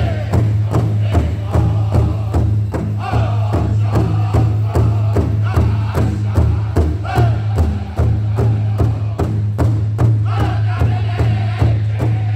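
Powwow drum group singing: several singers strike a large shared drum in a steady, even beat while their voices come in with high chanted phrases every few seconds.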